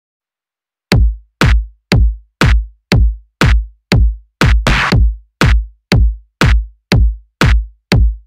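Electronic background music: a drum-machine kick drum beating steadily about twice a second, starting about a second in after silence, with a brief swish about halfway through.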